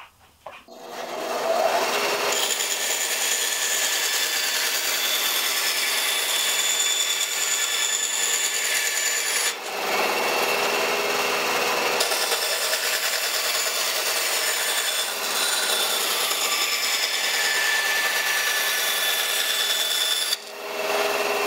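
Small Delta bandsaw running and cutting through plywood: a steady motor whine under the hiss of the blade in the wood, with brief dips about halfway through and near the end.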